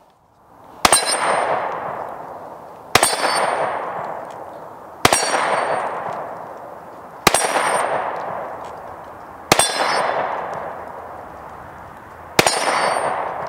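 Six 9mm pistol shots from a Glock 26 Gen5, about two seconds apart, each striking the steel paddles of an AR-500 dueling tree. Every hit rings out with a metallic clang that fades away over about two seconds.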